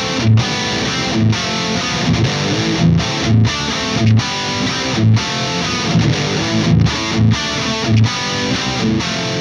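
Overdriven electric guitar (PRS Custom 24) through a Myasnikov Superlead preamp and a Vintage 30 speaker, recorded dry with a Shure SM57. It plays a rhythmic chord riff with accented strikes about once a second and brief clean stops between them.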